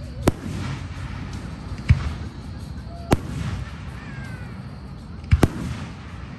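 Aerial fireworks shells bursting: five sharp booms, the last two in quick succession near the end, each followed by a brief crackle.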